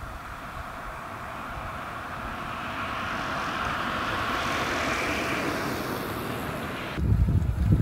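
A vehicle passing by, its noise building steadily for about five seconds and then fading. Near the end it cuts suddenly to heavy wind buffeting on the microphone.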